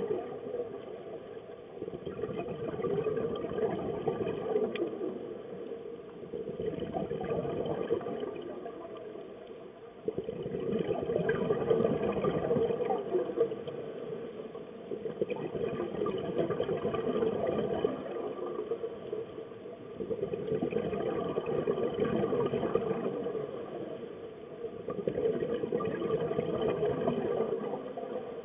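A scuba diver's regulator breathing underwater. A bubbling rush of exhaled air swells up and fades away every four to six seconds, in a slow, regular rhythm.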